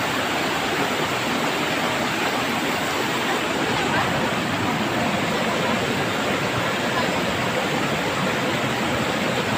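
Stream water cascading over rocks in a small waterfall, a steady rushing noise.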